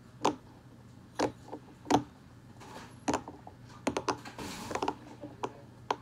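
Silicone pop-it fidget toy being pressed with the fingers: about ten sharp, irregularly spaced pops, with two short rustles from fingers sliding on the silicone.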